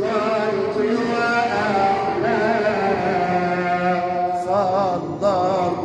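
A man chanting an Islamic ibtihal (devotional supplication) solo, holding long sung notes with wavering melismatic ornaments, quickest near the end.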